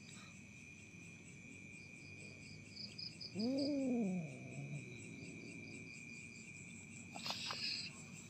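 Crickets chirping steadily, with one low cat yowl about three and a half seconds in that rises and falls in pitch over about a second. A short noisy rustle comes near the end.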